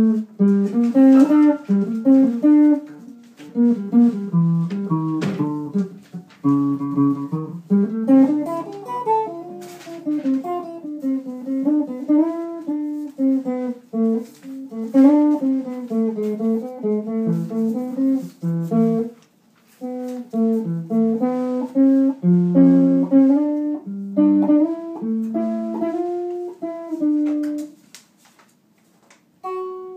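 Guitar playing a run of picked single notes and chords in a flowing melodic line, with short breaks about two-thirds of the way through and near the end.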